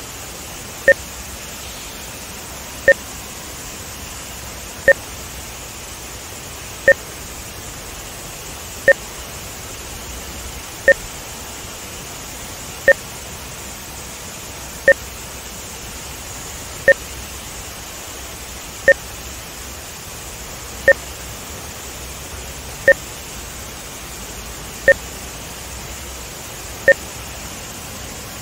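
Short electronic test beeps, one exactly every two seconds, each two tones at once, low and high; they are timing markers laid into the sound track for measuring audio–video sync. Under them runs a steady hiss of water rushing over a dam spillway.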